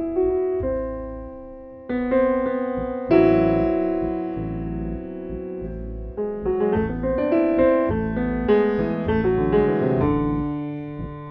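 Background piano music: slow chords struck and left to ring, then a quicker run of notes in the second half.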